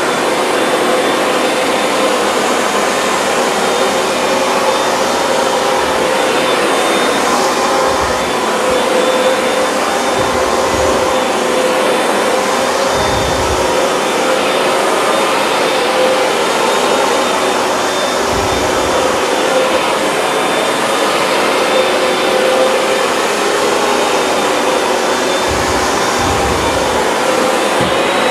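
Hoover Dual Power Max upright carpet cleaner running steadily through an extraction pass, its motor holding a constant whine as it sucks soapy water back out of a soaked rug, with a few brief low bumps.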